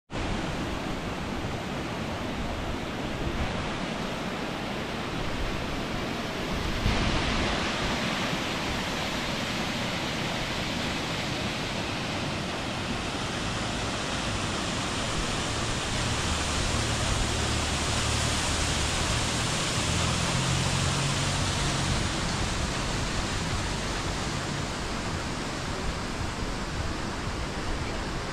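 Steady rushing of a waterfall pouring into a gorge, an even hiss that grows brighter and a little louder about seven seconds in, with a low rumble under it in the middle.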